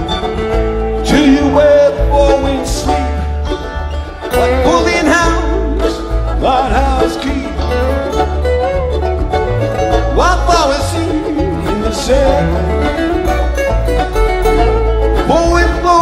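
Live band playing an instrumental jam: banjo, acoustic guitar, electric guitar, mandolin and upright bass together over a steady bass line, with a lead line bending notes up and down.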